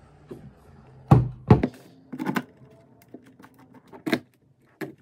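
Knocks and clicks of roller skate wheels going onto their axles and a skate tool working the axle nuts: two loud thunks about a second in, then scattered sharper taps and clicks.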